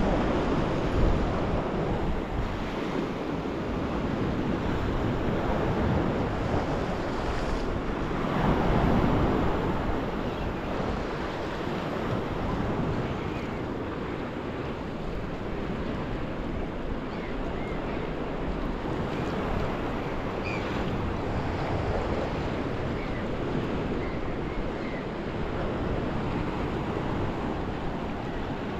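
Black Sea waves washing onto the shore, with wind buffeting the microphone; a wave surges louder about eight seconds in.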